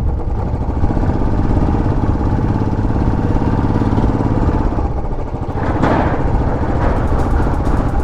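Royal Enfield Classic 500's single-cylinder engine running steadily, with a brief rush of noise about six seconds in.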